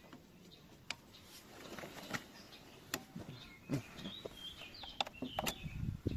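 Birds chirping faintly in short rising and falling calls, mostly in the second half, mixed with scattered sharp clicks and knocks.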